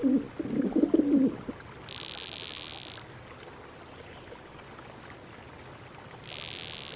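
Pigeon cooing: a few low, throaty coos in the first second and a half. Later come two separate short bursts of high hiss, each about a second long.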